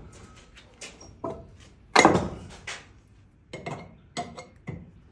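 Irregular knocks and metallic clinks of hand tools working on a wooden door frame and its nails, about eight strikes, the loudest about two seconds in.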